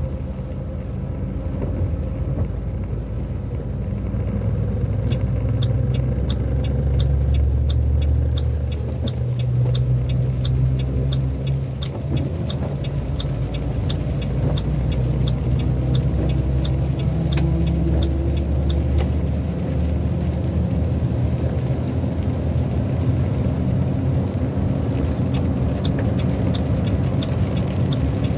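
Truck engine droning inside the cab with road noise, growing louder a few seconds in as the truck pulls out to overtake. A regular ticking, about two to three a second, runs through much of the middle of the pass and returns briefly near the end, as a turn signal would.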